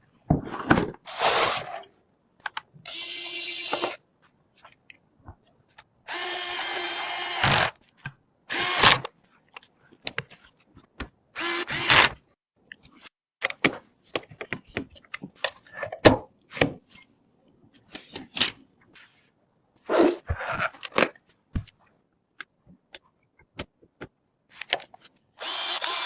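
A small electric screwdriver whirring in two short runs of a second or so, amid scattered clicks and knocks of hardware being handled.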